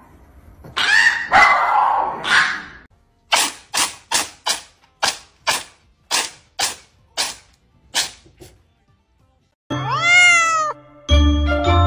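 A small dog making hoarse, raspy attempts at barking, then a cat giving a quick run of short, sharp sounds, two to three a second, and a kitten's single meow rising and falling in pitch. Chiming music starts near the end.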